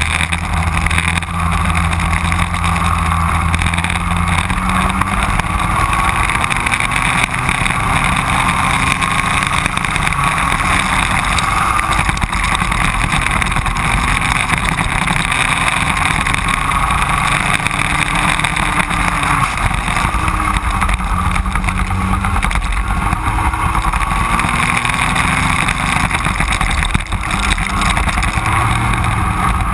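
Racing go-kart engines running hard in a close pack, the nearest engine's pitch rising and falling with the revs through the corners.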